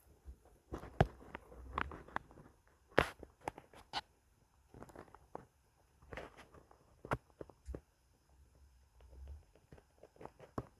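Footsteps: an uneven series of crunches and snaps, a few a second with pauses between.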